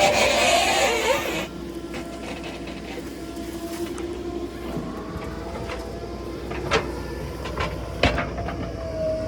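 Backhoe loader's diesel engine and hydraulics running, with a steady whine over a low rumble. Louder for the first second and a half, then settling, with two sharp metallic clanks near the end.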